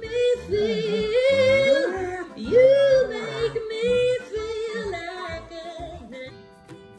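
A dog howling in a wavering, yodel-like run of rising and falling notes, broken into several calls with short gaps. About six seconds in it stops and plucked-string music takes over.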